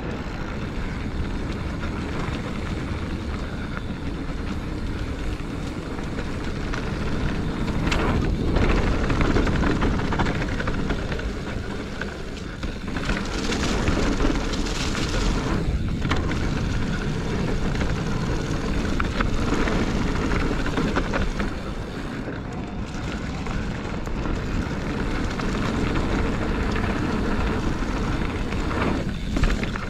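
A mountain bike being ridden on dirt trail: steady wind rush over the microphone and tyre rumble, swelling louder a couple of times.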